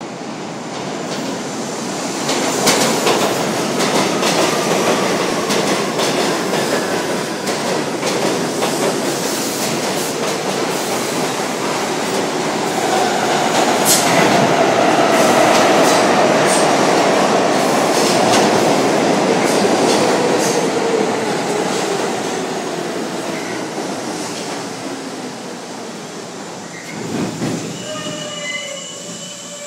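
New York City Subway trains, an R44 and a fluted stainless-steel R32, arriving at an underground station: a loud steady rumble and clatter of wheels over rail joints, with a motor whine that falls in pitch as the trains slow. It is loudest about halfway through, as a train passes close, and high squealing tones come near the end as a train stops.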